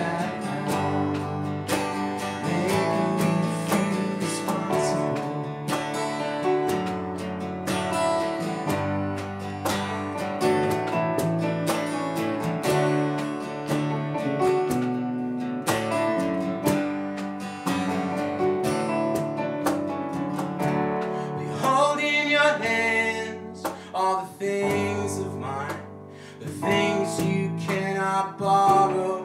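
A small band playing live: acoustic guitar strumming over electric keyboard and electric bass. A man's voice comes in singing about three quarters of the way through.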